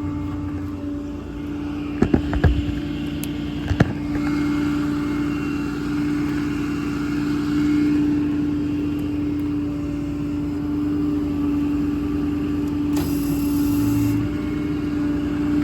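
6.7 L Cummins diesel running with the PTO engaged to drive the hydraulic system, a steady hum with a constant mid-pitched tone. A few sharp clicks come about 2 and 4 seconds in, and a short hiss of air about 13 seconds in.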